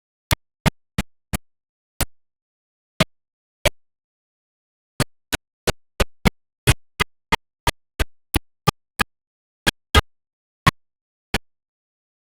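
A series of short, sharp clicks or knocks, about two dozen at irregular intervals, some close together, with dead silence between them.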